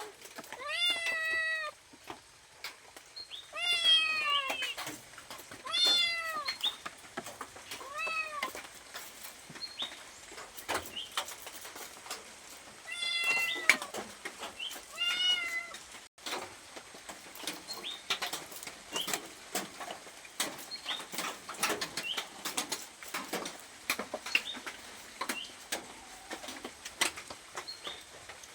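Domestic cat meowing to be fed: about six separate meows, each rising then falling in pitch, spread over the first half. After them comes a run of short, sharp clicks and taps.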